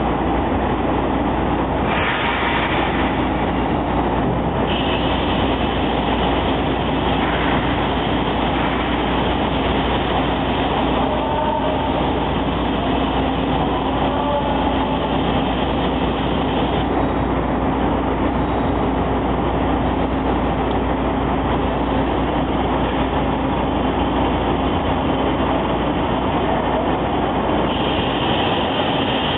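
Automatic double-head vertical glass drilling machine running: a steady mechanical noise with a constant low hum, its higher hiss changing character a few times.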